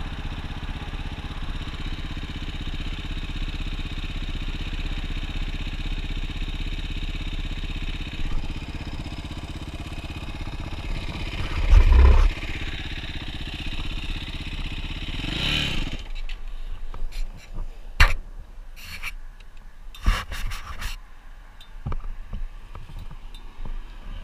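Dirt bike engine running steadily, with a heavy thump about halfway through. Soon after, the engine swells briefly and cuts off suddenly, leaving scattered knocks and scrapes.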